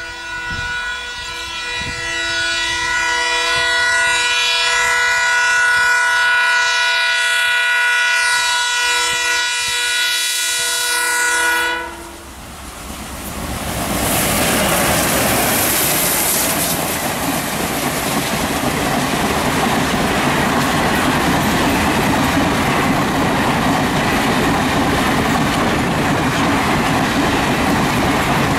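Indian Railways locomotive horn sounded in one long, steady blast for about twelve seconds. The horn then stops and the train rushes past at speed, its wheels clattering over the rail joints.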